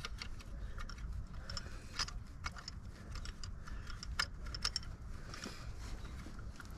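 Irregular light metallic clicks and clinks of hand tools, a socket and ratchet being worked on the engine's spark plugs, over a faint low rumble.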